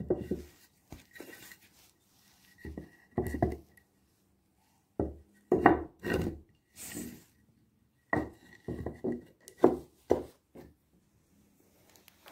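Irregular knocks and bumps of wood on a wooden workbench top, coming in small clusters with quiet gaps, and a short scrape a little past halfway.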